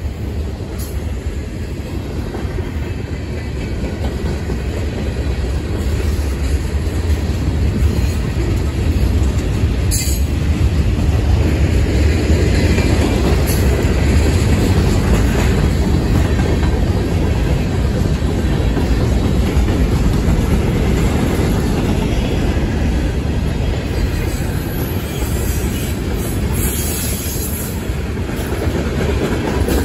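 Freight cars of a long manifest train rolling past at trackside: a steady heavy rumble of steel wheels on the rails with clickety-clack over the joints, swelling louder over the first several seconds, with a few sharp clicks partway through.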